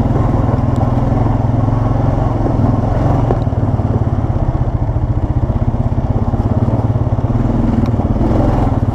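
ATV engine running steadily: a loud, low engine drone with a fast, even pulse.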